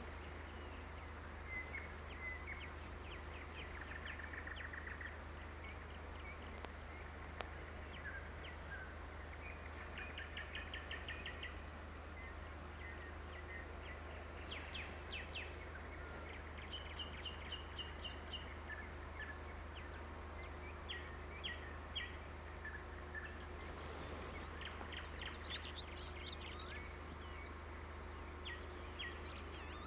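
Songbirds calling and singing: scattered short chirps and quick trills, some of them fast runs of repeated notes, over a steady low hum.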